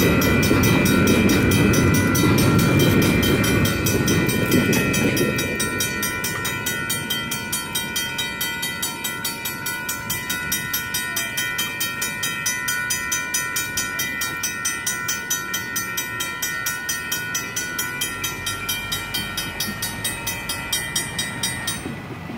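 Railroad crossing bells ringing with a fast, even beat: a Griswold mechanical bell together with a WCH electronic bell. Over them the last cars of a double-stack intermodal freight train rumble past for the first five seconds or so, then fade away. Shortly before the end the bells stop as the crossing deactivates and the gates rise.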